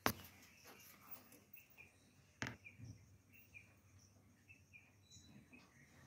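Budgerigars chirping faintly in a string of short, high notes, with two sharp clicks, one at the start and one about two and a half seconds in.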